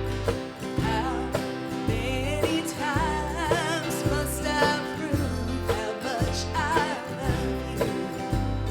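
A country-style gospel song: a singing voice with vibrato over acoustic guitar accompaniment.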